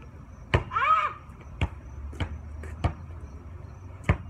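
A basketball hitting the hoop, then bouncing hard on pavement several times, with one more bounce near the end. A short shout comes just after the first hit.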